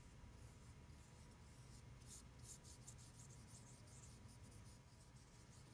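Faint scratching of a watercolor brush stroking across Bateek-O paper, with a few soft strokes clustered about two seconds in.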